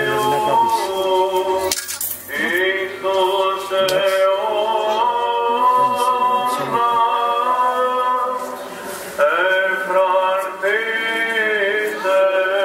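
Unaccompanied male chanting of a Greek Orthodox evening service: long, drawn-out notes that slide between pitches, with brief breaks about two seconds in and again past eight seconds.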